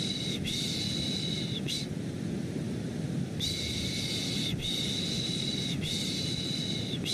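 Repeated 'shhh' shushing sounds for soothing a baby, each about a second long, coming in runs with a pause of about a second and a half between runs. Underneath runs a steady, low white noise.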